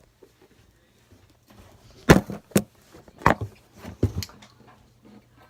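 A quick series of sharp knocks and thumps, about five of them, close together in the middle: hard objects being handled or set down.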